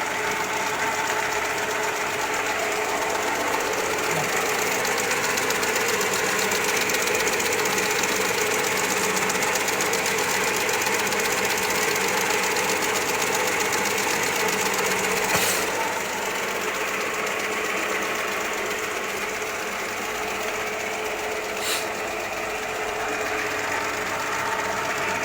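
Motor-driven tempeh machine running steadily under load while it processes soybeans. Two short sharp clicks or knocks about 15 and 22 seconds in.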